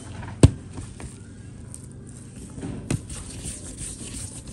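Hands rolling soft bread dough into balls on a plastic-covered table. A sharp knock about half a second in and a fainter one near three seconds, over a low rustle.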